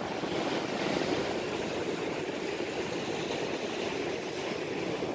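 Steady rush of ocean surf breaking along a rocky reef shore, an even wash of noise with no distinct events.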